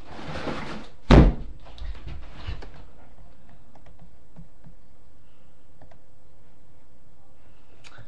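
A single loud thump about a second in, followed by faint rustling and a few small clicks.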